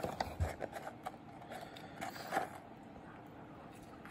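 Faint rustling and light clicks of a cardboard fry carton being handled while fries are taken out and eaten, mostly in the first half, with one small rustle about two and a half seconds in.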